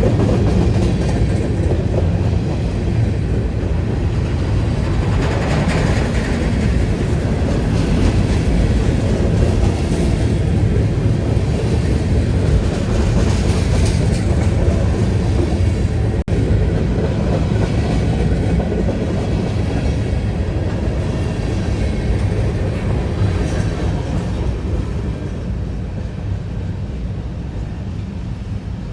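Freight train rail cars rolling past with a steady, loud rumble and rattle of wheels on the track, easing off slightly near the end.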